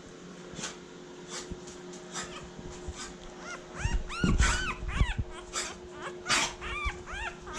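Newborn puppy squeaking and whimpering. From about halfway through comes a string of short, high squeaks, each rising and falling in pitch, mixed with a few bumps from the puppy being handled.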